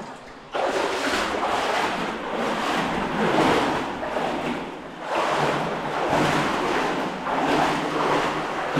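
Water sloshing and splashing around a person's legs as they wade through a cave creek, coming in uneven surges that swell and ease with the steps.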